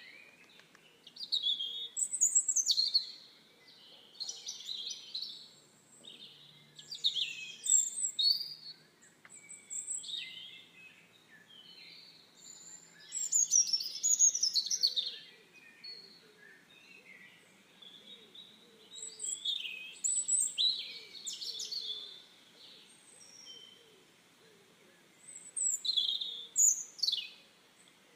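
Birds singing and chirping: bursts of quick, high notes every few seconds, with fainter calls in between.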